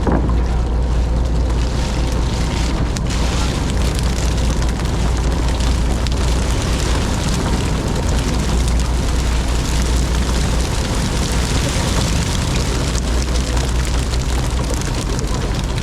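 Fishing boat's engine running steadily at sea, a constant low hum under a steady wash of wind and water noise.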